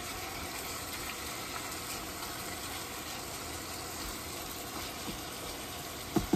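Ground beef sizzling steadily as it browns in a pot on an induction cooktop.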